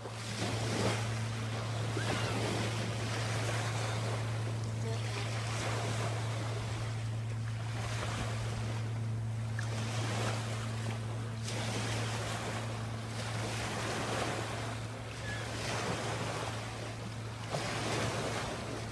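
Small waves washing onto a pebble beach, surging every couple of seconds, over a steady low hum.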